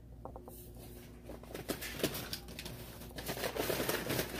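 Packaging being handled: plastic and cardboard rustling and crinkling, a run of small clicks and crackles that starts about a second in and grows louder toward the end.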